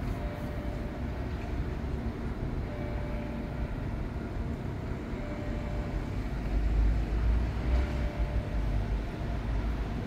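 Low outdoor background rumble, swelling louder about six and a half seconds in; the siren is not yet sounding.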